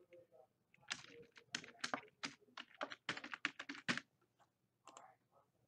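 Computer keyboard being typed on: a quick run of keystrokes that stops about four seconds in, followed by a few scattered clicks.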